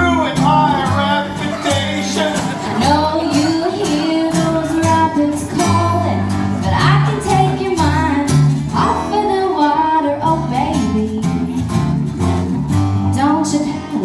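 Live acoustic country-folk band playing: strummed acoustic guitar and plucked upright bass under singing voices.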